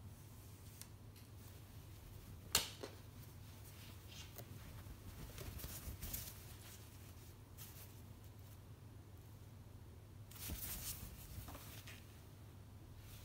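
Hands handling packaging and collectibles: a sharp click about two and a half seconds in, then short bursts of rustling around the middle and near the end, over a faint steady hum.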